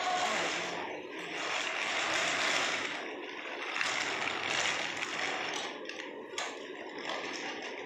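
Baby walker's plastic wheels rolling and rattling on a tiled floor as the walker is pushed about, with a sharp click about six seconds in.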